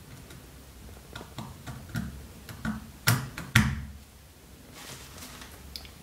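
Small steel pocketknife parts, a pinned liner with its pins, clicking and tapping as they are handled and set down on a work board. There is a run of light clicks, with two sharper knocks about half a second apart in the middle.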